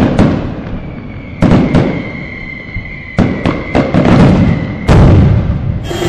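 Aerial fireworks bursting in a run of sharp bangs, several in quick succession in the middle, with a steady high whistle held behind them for a few seconds. Near the end the sound cuts abruptly to drum-led music.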